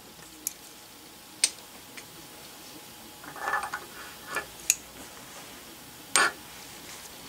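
Pliers clinking against a steel bar on a metal hot plate as the bar is gripped and shifted: a few light metallic taps, a short rattle about three and a half seconds in, and a sharper clank just after six seconds.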